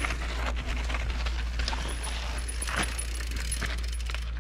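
Mountain bike rolling down a dirt trail, its chain and frame rattling with many small clicks over the bumps, over a steady low rumble.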